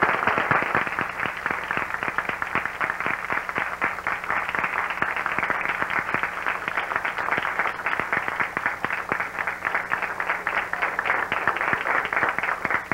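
Audience applauding: many hands clapping in a dense, steady patter, loudest at first and easing slightly, over a faint steady hum.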